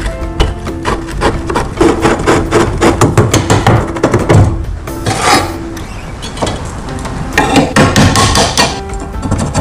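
Spanner and screwdriver clicking and scraping on the rusty pivot nut and bolt of a bread cutter as it is taken apart. After a lull there is more rubbing and scraping as the wooden handle is worked on the blade's tang. Background music plays under it throughout.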